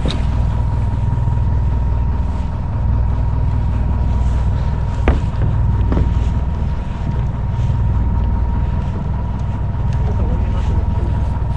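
Steady low rumble of a fishing boat's engine, with wind on the microphone and a faint steady high tone. Two sharp knocks come about five and six seconds in.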